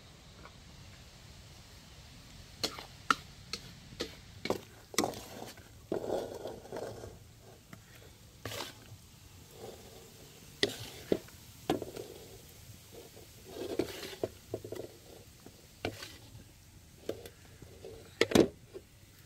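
Irregular clicks and knocks of a utensil against clay cookware, with short scraping sounds, as stir-fried baby corn and mushrooms are tipped out and served. The loudest knocks come near the end.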